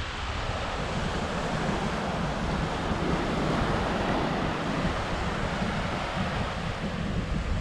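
Small waves breaking and washing up a sandy beach, a steady rush that swells a little midway, with wind buffeting the microphone.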